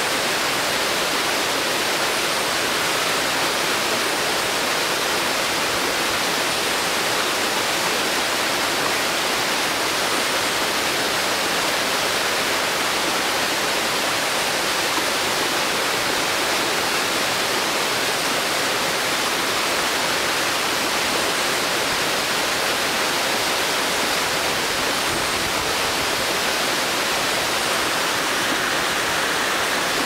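Small two-tiered waterfall splashing down rocks into a pool: a steady, even rush of falling water.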